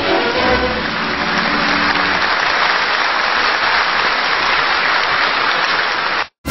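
Applause: a dense, even clapping noise that swells as the music fades and cuts off suddenly near the end.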